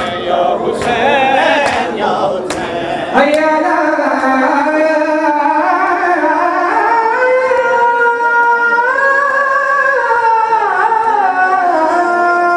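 A noha sung by male voices over mourners beating their chests in matam, the slaps landing roughly once a second. A little over three seconds in, the slaps stop and the singing turns into a long held melody that steps slowly in pitch.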